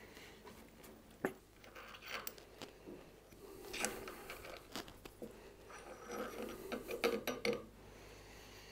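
Scattered light clicks, clinks and rubbing of metal tools and machine parts being handled, with a sharper tap about a second in and a quick cluster of clinks near the end; no motor is running.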